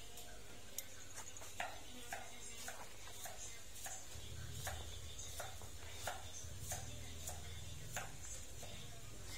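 Light, evenly paced footsteps of someone walking slowly, a soft click about every half second, with a faint low hum in the middle.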